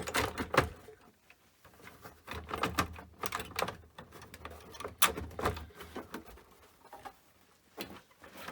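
Handling noises from screwing a power supply back into a BBC Model B microcomputer case: irregular clicks, knocks and scrapes of screws and a screwdriver.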